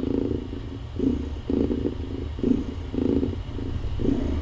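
Domestic cat purring close to the microphone, in even pulses about twice a second over a steady low rumble.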